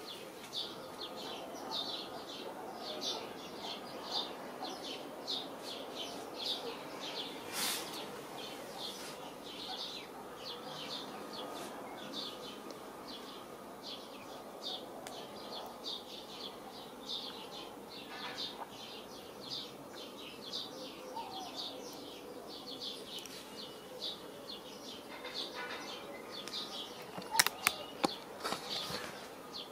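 Small birds chirping: a steady run of short, high chirps in quick succession. There is a sharp click about eight seconds in and a few louder clicks near the end.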